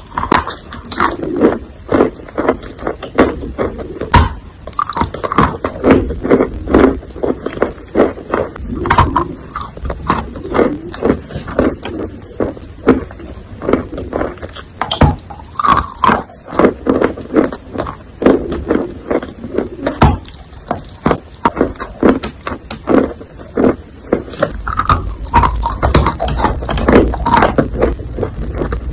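Close-miked chewing of a bite of wet chalk: irregular crunching and moist clicks, several a second, as the soft chalk is broken up between the teeth.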